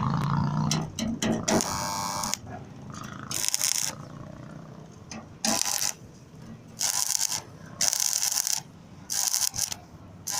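Electric arc welding on a steel wheelbarrow: the arc crackles and hisses in short bursts of about half a second to a second, struck again every second or two, about seven times, as the weld is laid in short stitches.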